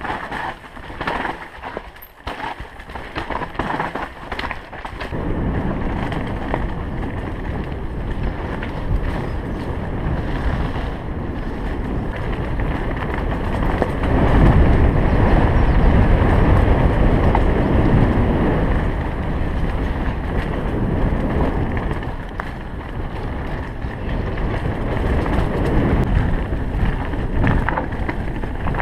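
Canyon Strive mountain bike being ridden fast downhill: tyres rumbling over dirt, gravel and rock, with wind buffeting the microphone. Sharp rattling knocks from the bike over roots for the first few seconds, then a steady, heavier rumble that is loudest past the middle.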